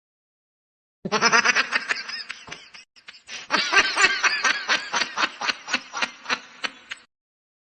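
Laughter used as a meme sound effect: a long run of short, rapid laughing bursts, about four a second, starting after a second of silence and tapering off near the end.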